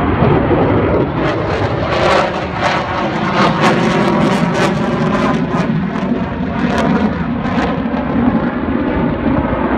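F-35 Lightning II fighter jets flying past, loud jet engine noise throughout, harshest and crackling through the middle stretch before easing slightly near the end.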